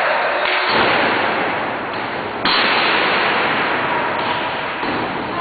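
Audience applauding, a dense clatter of clapping that swells under a second in and grows louder again about two and a half seconds in.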